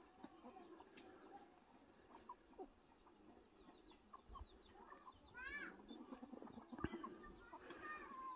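Faint clucking and chirping of chickens, with short scattered calls, a quick run of higher calls about five and a half seconds in, and a sharp click near seven seconds.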